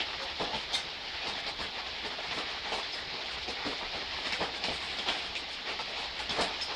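Soft, steady rain: an even hiss with many individual drops striking close by.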